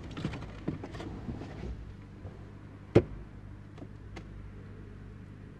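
Handling noise from working a wire in behind a car's plastic interior trim with a plastic pry tool: scattered small clicks and rustles, then one sharp plastic click about three seconds in.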